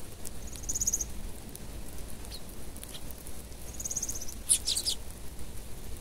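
Eurasian tree sparrows feeding on scattered seed: two short, high trilled calls, about half a second and four seconds in, and a quick run of sharp ticks just after the second, over faint scattered pecking clicks.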